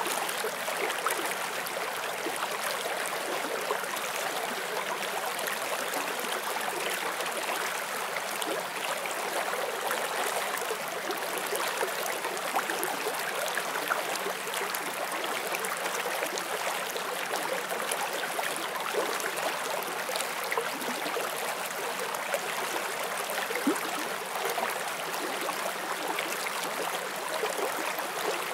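Forest stream flowing steadily over rocks, a constant rush of water with small splashes and trickles throughout.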